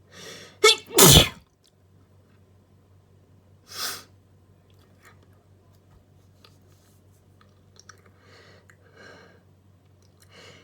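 An allergy sneeze: a quick breathy in-breath, then one loud, sharp sneeze about a second in. A shorter breathy burst comes about four seconds in, and faint breathing near the end.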